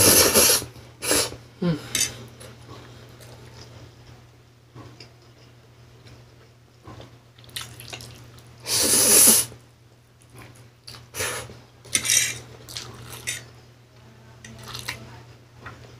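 A person slurping pancit canton instant noodles off a fork close to the microphone: a loud slurp at the start and another about nine seconds in, with quieter wet chewing and smacking sounds between.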